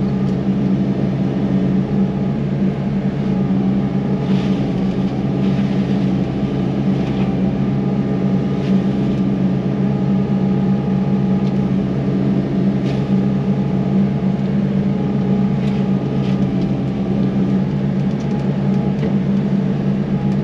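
Yanmar SV100 excavator's diesel engine running steadily under working load while driving a Fecon mulching head, with occasional short crackles over the drone. The machine is partway through a particulate-filter regeneration, so it is being kept working at an even pace.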